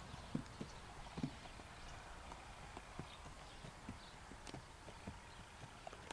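Hoofbeats of a Tennessee Walking Horse walking on soft dirt while stepping over wooden ground poles: a steady run of soft knocks, with a few sharper, louder ones in the first second and a half.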